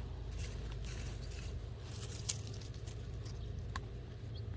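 Garden soil being dug through for potatoes: scattered soft scrapes and rustles of earth, with one sharp click about two seconds in.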